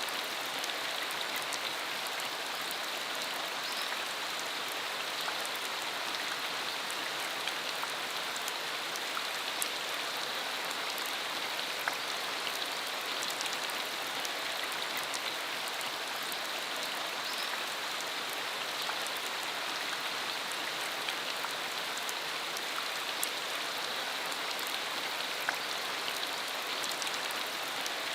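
Steady rain falling, an even hiss of rain with scattered individual drop ticks.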